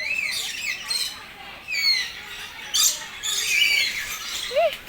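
A flock of birds calling at once: many short chirps and squawks overlapping, some sweeping down in pitch.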